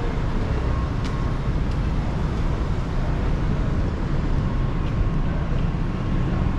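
Steady low rumble of distant city traffic rising from the streets far below.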